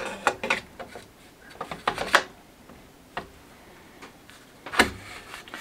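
Free-float handguard being slid over an AR-15 barrel and onto the barrel nut: a series of light metal clicks and scrapes, with the sharpest knock near the end.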